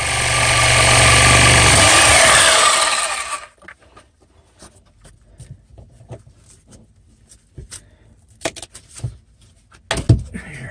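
Reciprocating saw cutting through a wooden support post for about three and a half seconds, then stopping. Scattered light knocks follow, with a sharper knock near the end as the post is struck with a gloved hand to work it loose.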